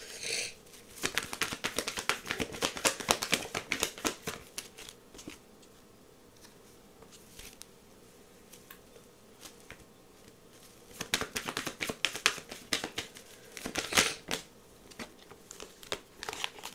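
Tarot cards being handled: quick papery flicks and rustles in two spells, starting about a second in and again about eleven seconds in, with a near-quiet gap between.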